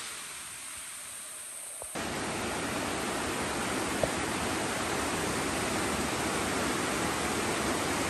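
Rushing water of a mountain river, a steady even hiss; about two seconds in it jumps suddenly louder.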